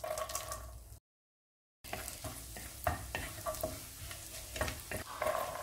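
Chopped garlic and dried red chillies sizzling in melted butter in a non-stick pan, stirred with a wooden spatula that knocks against the pan now and then. The sound cuts out completely for almost a second about a second in.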